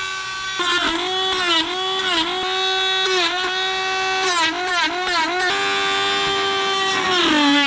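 Dremel rotary tool running at high speed with a steady whine, its pitch dipping briefly again and again as the spinning bit is pressed into the wood of a small carving. Near the end the pitch drops and holds lower.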